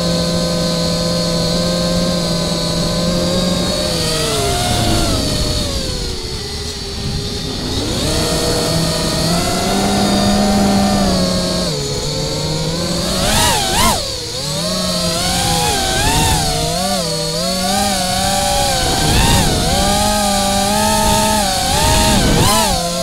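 Brushless motors of an FPV quadcopter whining, their pitch steady at first, sagging low around six seconds in, then swinging rapidly up and down with the throttle from about thirteen seconds on.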